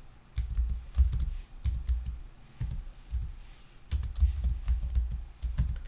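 Typing on a computer keyboard: a quick run of keystrokes, each a click with a dull low knock, a short pause about three seconds in, then a second run.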